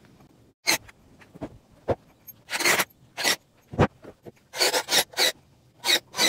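An irregular series of short scrapes and rustles with a few knocks, about a dozen in six seconds, including one dull low thump a little before the four-second mark.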